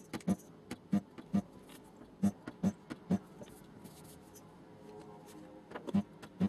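Hammer blows on the sheet-metal skin of a Nissan Skyline R34 door during panel straightening, two to three taps a second, each with a short metallic ring. The tapping stops a little after three seconds and starts again near the end.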